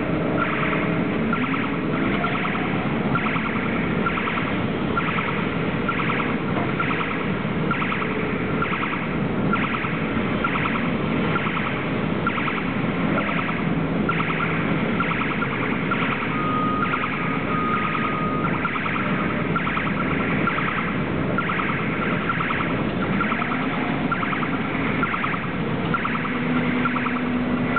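Automated guided vehicle's warning beeper sounding in an even repeating pattern, about one and a half beeps a second, over a steady machine hum.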